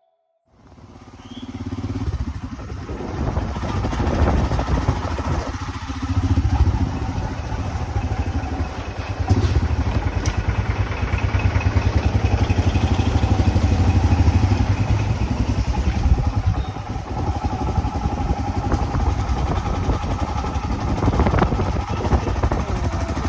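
Motorcycle engine running steadily while riding, a continuous low rumble that fades in over the first two seconds.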